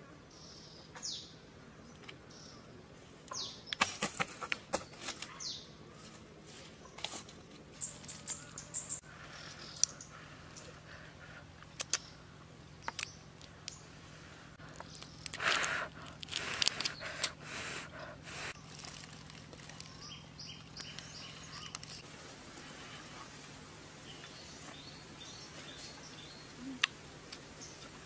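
Irregular clicks and crackles of boiled prawn shells being peeled by hand, with chewing, and a few bird chirps now and then.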